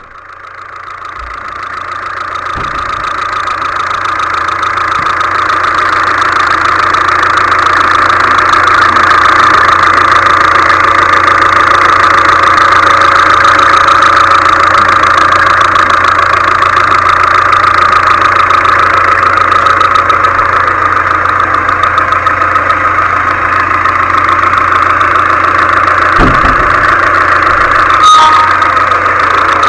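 Four-cylinder diesel engine of an Audi A3 2.0 TDI idling steadily with a diesel knock and a steady whine, with an injector cleaning machine connected to its fuel system. The sound fades up over the first several seconds, and there is a brief chirp near the end.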